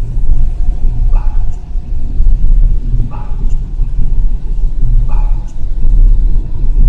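Psychedelic background music: a deep bass drone with a pitched figure repeating about every two seconds.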